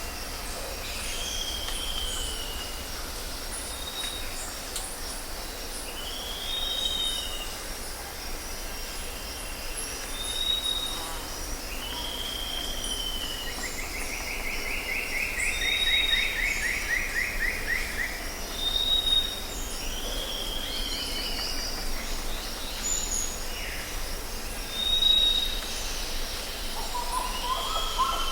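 Jungle ambience: birds give repeated calls over a steady high chorus of insects. A downslurred whistle repeats every few seconds, alternating with short high notes, and a long rapid trill slowly falls in pitch about halfway through.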